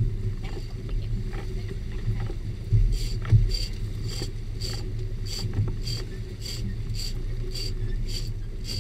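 Big-game fishing reel being cranked hard, a short whir about twice a second, over the steady low running of the boat's engine. A couple of heavy thumps about three seconds in.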